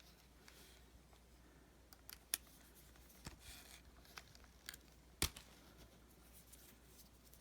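Faint handling noise from a resin ball-jointed doll: a few sharp clicks, the loudest about two and five seconds in, and a brief soft rustle a little after three seconds.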